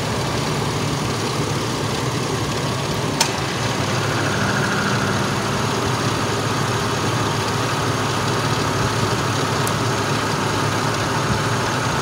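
2002 Ford Ranger engine idling steadily with the air conditioning on during an AC recharge. A single sharp click comes about three seconds in.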